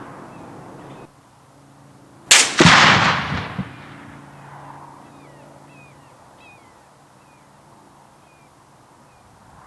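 A supersonic rifle bullet passing close by with a sharp crack, followed a fraction of a second later by the distant rifle's report, which rolls and fades over about a second. Small birds chirp faintly afterward.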